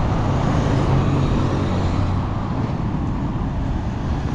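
Road traffic: motor vehicle engines running close by, a steady low rumble that swells and eases.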